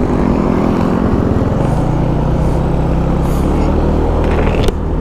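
Yamaha Nouvo scooter's small single-cylinder engine running steadily while riding, with wind and road noise on the microphone. A sharp click comes a little before the end.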